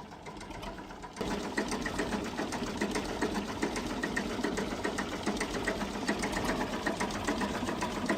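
A steady, rapid mechanical clatter, a fast run of even clicks, that starts suddenly about a second in.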